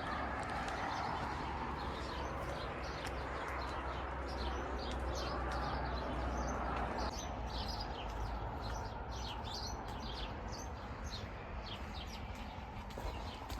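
Small birds chirping, many short high notes coming thick and fast, over a steady low rumble.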